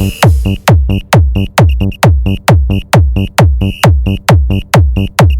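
Electronic dance remix played on a mobile sound system for a sound check. A heavy kick drum hits about two and a half times a second, with a short high percussion hit between the kicks.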